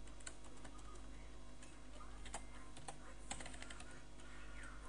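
Computer keyboard keystrokes: a few scattered, irregular key clicks, over a faint steady background hum.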